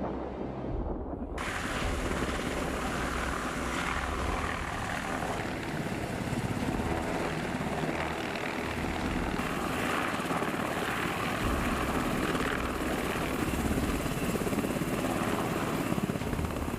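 Helicopter in flight: steady rotor and turbine engine noise, growing fuller and brighter about a second in.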